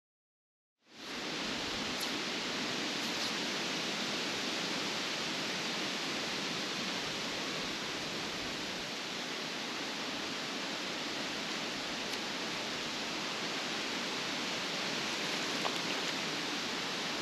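Steady rushing of creek water running over a gravel and stone bed, starting about a second in.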